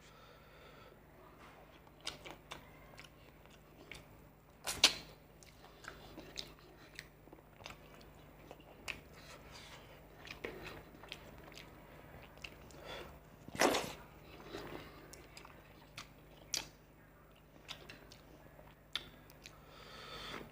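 Close-miked chewing and wet mouth sounds of a man eating fish curry and rice by hand, with scattered soft clicks and two louder smacks, about five seconds in and again near fourteen seconds. A faint steady low hum runs underneath.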